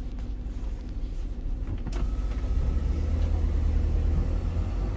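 Motorhome engine idling, a low rumble heard inside the cab that swells for a couple of seconds in the middle, with a single click about two seconds in.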